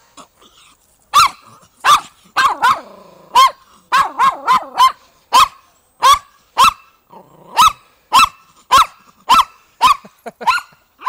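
Pomeranian barking: about twenty short, high-pitched barks, some in quick runs, the reactive barking this small dog shows around other dogs.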